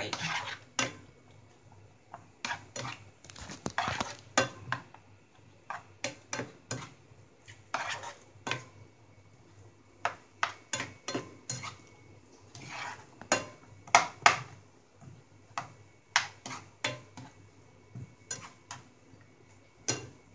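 A spatula scraping and knocking against a non-stick frying pan as chopped onions and tomatoes are stirred in hot oil: irregular clatters and scrapes, a few a second, with short pauses between.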